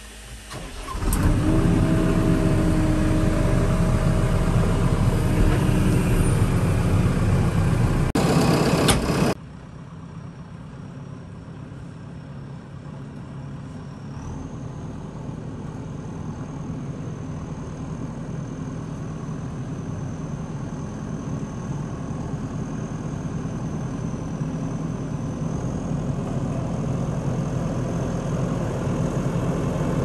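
A JCB backhoe loader's diesel engine starts up about a second in and runs loud, then drops abruptly about nine seconds in to a steadier run that grows slowly louder, with a thin high whine over it.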